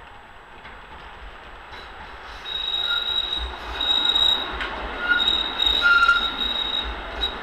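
Tram approaching and passing close by, its steel wheels squealing on the rails in a high, steady tone that comes and goes several times over a running rumble. It grows louder about two and a half seconds in as the tram draws level.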